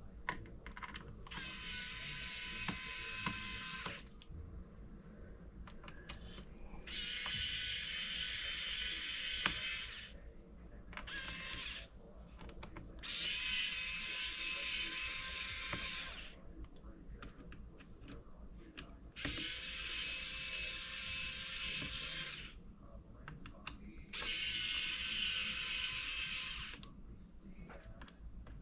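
Small electric precision screwdriver whirring in runs of about three seconds, five times, as it turns the small screws of a laptop's bottom panel. Light clicks and handling of the screwdriver come between the runs.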